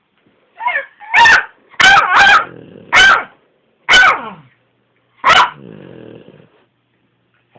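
A dog barking about seven times, short sharp barks spaced half a second to a second apart, the first one quieter. After the last bark there is a low snoring rasp lasting about a second, made while the dog is awake.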